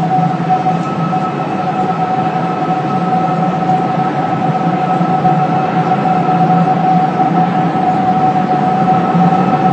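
A haunting, steady hum from the new One World Trade Center tower: one held tone with fainter higher overtones, over a constant rushing noise.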